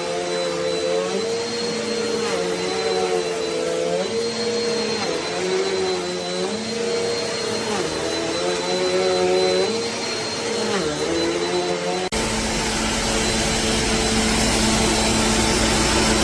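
Upright vacuum cleaner running, its motor pitch dipping briefly every second or two as the load on it changes. About twelve seconds in, the sound cuts abruptly to a louder, hissier steady vacuum run.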